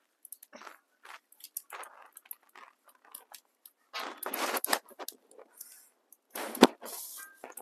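An animal chewing and crunching on something, in irregular bites, with one sharp loud crack near the end.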